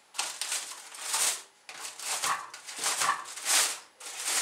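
Aluminium foil crinkling and rustling in several short bursts as it is pulled back from a roasting pan.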